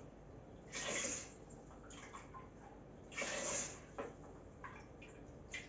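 Water poured into the inner pot of an electric pressure cooker, measure by measure: two short splashing pours about two seconds apart, with small faint knocks between.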